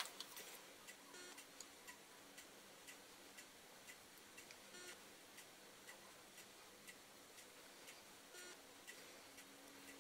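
Near silence: faint room tone with quiet, regular ticking about twice a second.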